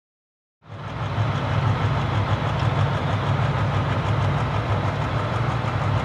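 Steady low, rumbling machine-like noise, like a running engine, that cuts in abruptly about half a second in after dead silence.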